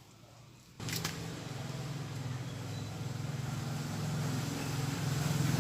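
A small machine motor runs steadily, starting abruptly about a second in and growing slowly louder with a slight rise in pitch.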